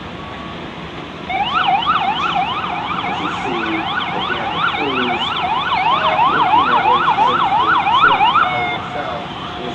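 Emergency vehicle siren in a fast yelp, its pitch sweeping up and down about three times a second. It starts about a second in and cuts off near the end.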